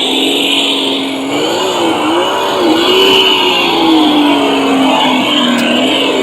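Simulated engine sound from the sound module of an MN99S Land Rover Defender remote-control car, its pitch rising and falling several times with the throttle, over a steady high whine from the car's drive.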